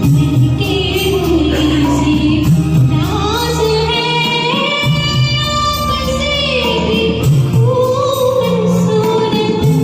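Hindi film-song music: steady low chords under a melody of long held notes that slide up and down, with a female voice singing.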